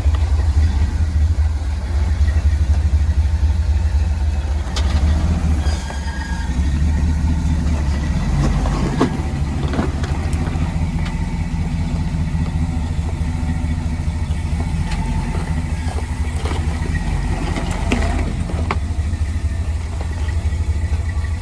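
Jeep engine running at low revs under load while crawling up a rock waterfall, a steady low drone with scattered clicks and knocks.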